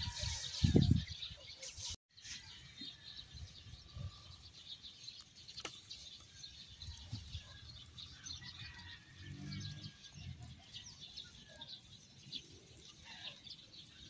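Faint outdoor ambience with scattered bird chirps. A few low thumps and rustles in the first second, then a short gap.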